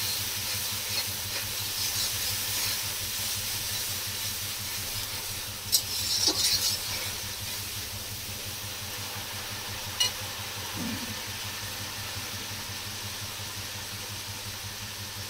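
Onion and ginger paste sizzling steadily as it fries in oil in an aluminium kadai, over a steady low hum. A metal spatula scrapes and clinks against the pan several times about six seconds in and once more about ten seconds in.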